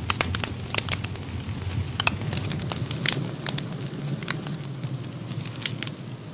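Campfire burning, with sharp, irregular crackles and pops over a steady low rumble.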